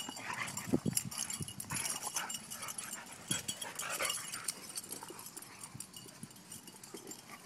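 Three dogs play-fighting at close range: short, scattered dog sounds and scuffling, fading a little toward the end.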